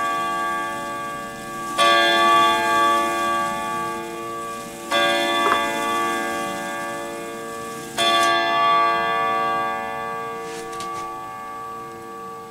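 Grandfather clock striking the same note three times, about three seconds apart, each stroke ringing on and slowly dying away.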